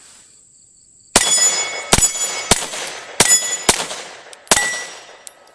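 Six 9mm pistol shots in a quick string from an HK P30L fitted with an HK Parts muzzle brake. They start about a second in and are fired roughly every half second to second, each followed by a short ringing echo.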